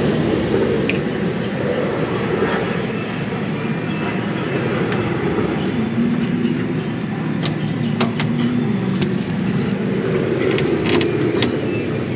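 A steady low motor rumble, with a few short clicks and knocks in the second half as PVC pipe and fittings are handled.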